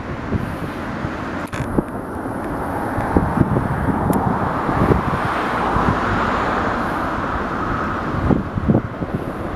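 Wind buffeting the microphone over a steady outdoor rumble of traffic noise, which swells in the middle and eases off near the end.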